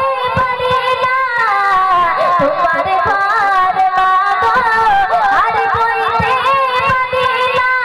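A girl singing a Bengali Islamic gojol solo into a microphone, in a plaintive, weeping style, with long wavering held notes.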